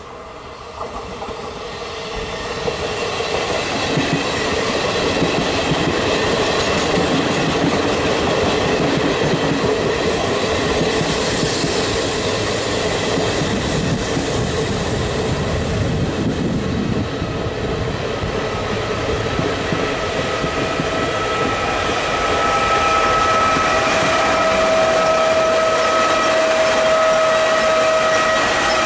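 Regional push-pull train of MD coaches with an E464 electric locomotive at the rear running past. The rumble of wheels on rail swells over the first few seconds as it comes in, then holds steady and loud with clickety-clack from the coaches. A steady whine joins near the end as the locomotive comes by.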